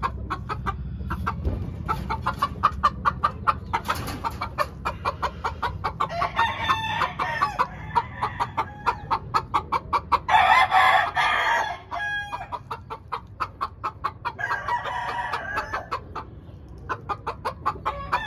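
Gamefowl chickens clucking in rapid short calls, with a rooster crowing loudly about ten seconds in and a fainter crow a few seconds later.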